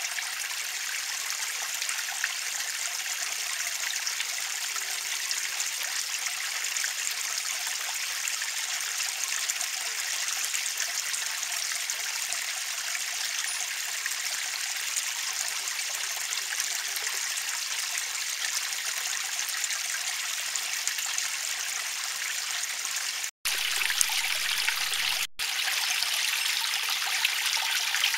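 Shallow water trickling over pebbles in a small garden stream, a steady hiss of running water. It cuts out for a split second twice near the end.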